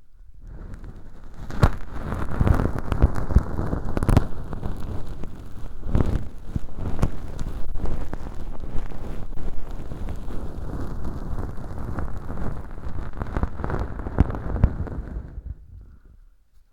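Bonten feather earpick rubbing inside a model ear canal lined with fluffy velcro and packed with dry fake earwax: a dense, scratchy rustle full of crackles. It starts about half a second in and fades out shortly before the end.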